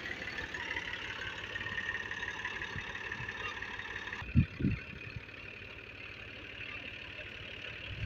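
Massey Ferguson 240 tractor's three-cylinder diesel engine running steadily, with two loud thumps in quick succession about halfway through.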